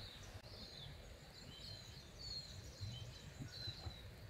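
Faint birdsong: scattered short high chirps and glides, over a low rumble.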